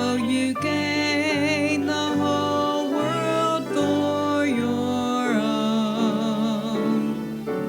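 A hymn sung with instrumental accompaniment: a singing voice holds long, wavering notes over steady low accompaniment chords.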